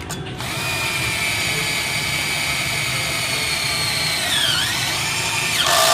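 Cheap cordless drill motor whining steadily as it drives a screw into box-section steel. The pitch sags briefly about four and a half seconds in as the load rises, then recovers, and a short loud burst comes just before it stops.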